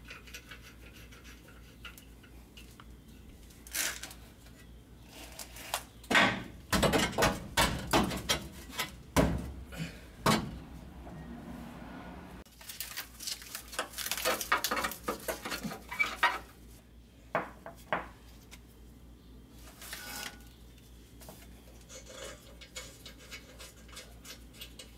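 Irregular metallic clinks and clanks of steel hardware as nuts and bolts are fitted by hand to a transmission cross member and transmission mount. The knocks come in clusters of quick strikes, busiest in two runs in the middle, with single clinks between.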